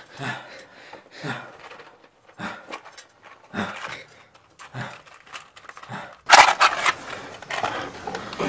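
A match struck in the dark about six seconds in, a few quick scratches and a flaring hiss, the loudest sound here. Before it come soft, evenly spaced noises about once a second.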